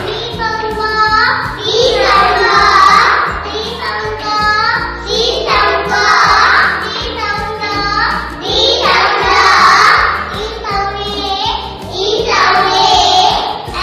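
A group of children singing together, in repeated phrases of about two seconds each.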